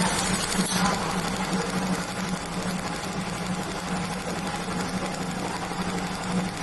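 QCW fiber laser welder pulsing as it lays filler wire onto a steel mold: a rapid, even ticking buzz over a steady machine hum.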